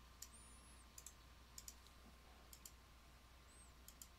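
Faint clicking of computer keys, a few quick pairs of clicks roughly a second apart, over a faint steady hum.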